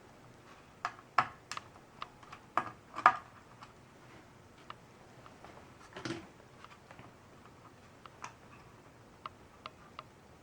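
Scattered sharp clicks and taps of the parts of a Ducky mechanical keyboard being handled as it is taken apart, with the loudest cluster about one to three seconds in and another tap about six seconds in.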